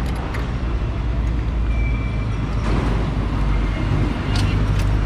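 Street traffic with a steady low engine rumble, and a few short sharp clicks from a wheel clamp being fitted to a parked car's front wheel: two near the start and two near the end.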